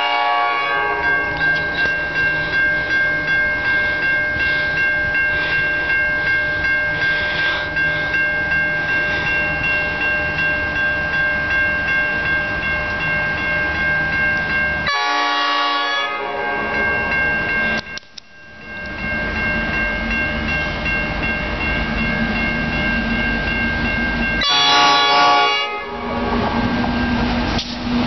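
Level crossing bell ringing steadily while an approaching NR class diesel freight locomotive sounds its horn three times: once at the start, again about fifteen seconds in, and a longer blast near the end. The deep rumble of the locomotive's diesel engine grows over the last few seconds as it nears the crossing.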